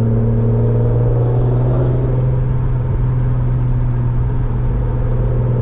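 Infiniti Q50's VQ V6 with a loud aftermarket exhaust, droning at a steady low pitch while the car cruises at light throttle, heard from inside the cabin.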